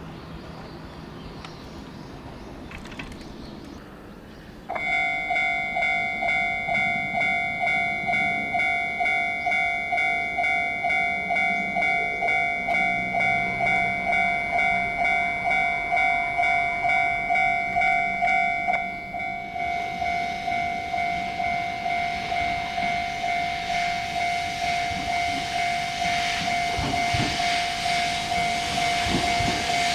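Railway level crossing warning bell starting suddenly about five seconds in and ringing at about two strokes a second, its tone thinning at around nineteen seconds. Near the end a rising rumble with knocks joins it as a train approaches.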